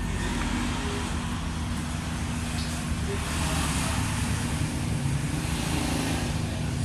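A motor vehicle engine running steadily with a low, even hum.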